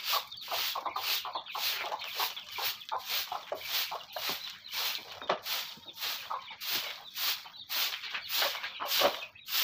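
Short hand broom of bundled stalks sweeping dirt and litter across a concrete floor, in quick, even scraping strokes about two a second.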